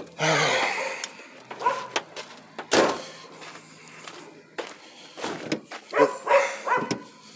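A dog barking in short bursts, the loudest near the start and several more towards the end, with a single sharp knock about three seconds in.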